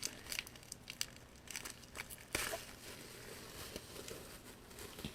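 Bubble wrap and plastic packaging being handled and unwrapped: scattered crinkles and crackles, with one sharper crackle about two and a half seconds in.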